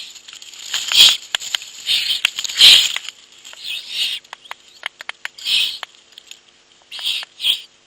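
Owlets giving short hissing begging calls for food, about seven in a row, with sharp clicks and scratches between them.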